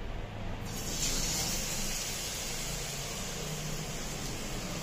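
A cornflour-battered prawn sizzling as it deep-fries in hot oil in an iron kadai, a steady hissing sizzle that starts about half a second in and fills out within the first second.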